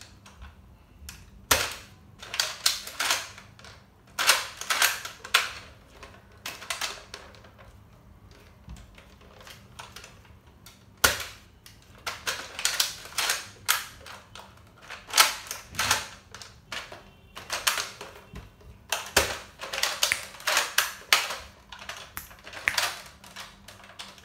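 Pump-action Nerf dart blaster being primed and fired over and over: sharp plastic clacks as the slide is pulled back and pushed forward, and the snap of each shot. The clacks come in clusters with short pauses between them.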